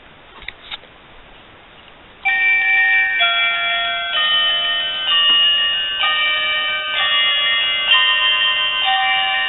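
A battery-powered musical Christmas ornament set off by hand. A few faint handling clicks come first, then about two seconds in a thin, high electronic melody of held, overlapping notes starts abruptly and plays on.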